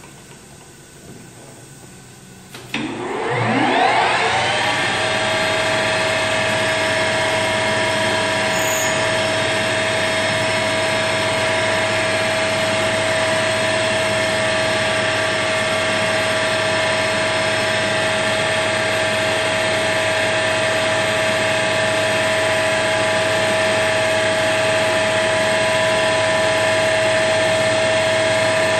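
Metal lathe started up: a clunk, then the spindle and gear train spin up with a rising whine over about two seconds and settle into a loud, steady run with a whine from the gearing.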